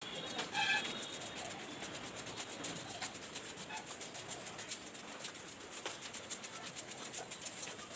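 Rapid scratchy rustling and rattling of a handheld phone's microphone rubbed by the hand and clothing while walking down stairs. A brief high chirp comes about half a second in.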